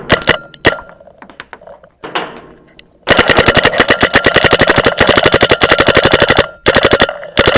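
Paintball marker firing: a few single shots, then a long rapid string of about a dozen shots a second for around three seconds, and two short bursts near the end.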